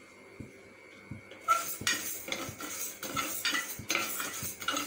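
A spoon stirring split moong dal as it dry-roasts without oil in a metal pressure cooker, scraping and clinking against the pan in quick repeated strokes that start about a second and a half in.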